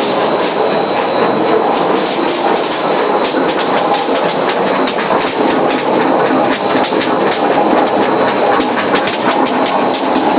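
Olive colour-sorting machine running: a steady dense rattle of olives pouring through it, with many rapid, irregular sharp clicks.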